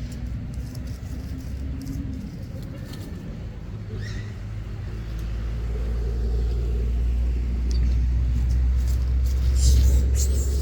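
Low, steady rumble of a motor vehicle's engine that grows louder over several seconds, as if drawing near.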